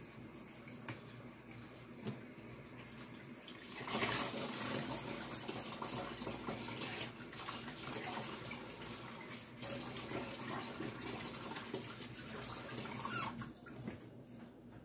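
Jollof rice boiling in a covered pot under a glass lid: a steady bubbling hiss that grows louder about four seconds in and drops back near the end.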